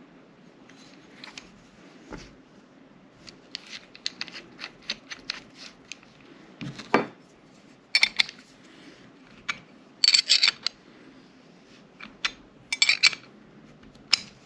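Irregular small metallic clicks and clinks of hand tools and parts being handled while working a pistol sight pusher on a slide, with louder clusters of clinks about eight, ten and thirteen seconds in.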